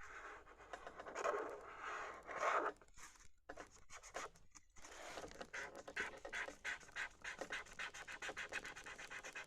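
Colouring on paper, scratching back and forth. About halfway through the strokes turn into a fast, even run.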